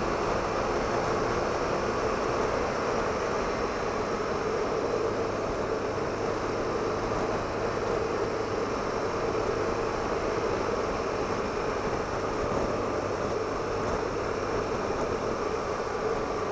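Steady wind rush and engine note of a BMW R1200RT boxer-twin motorcycle cruising at an even speed.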